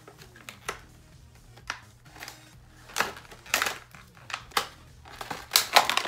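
Scissors snipping through tape and clear plastic packaging, with the plastic crinkling: a handful of separate sharp snips, busiest and loudest near the end.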